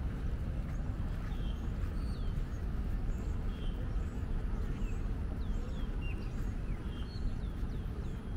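Small birds chirping, many short calls and little falling notes, over a steady low outdoor rumble.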